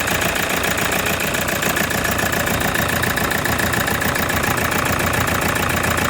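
2007 Toyota Hiace 2.5-litre D-4D diesel engine idling rough with a steady knock. It is running with a vibration that a replaced control box has not cured.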